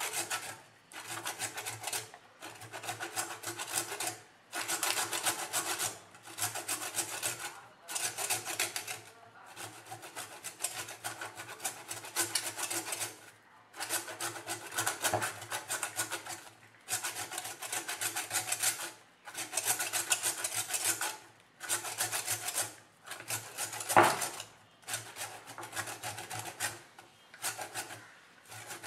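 A whole coconut rubbed hard against a box grater, rasping off the brown outer shell fibre in scraping bouts of one to two seconds with short pauses between. A sharp knock about 24 seconds in is the loudest sound.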